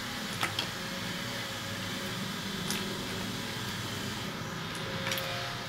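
A few light clicks of small marble strips being picked up and set down by hand, over a steady low hum.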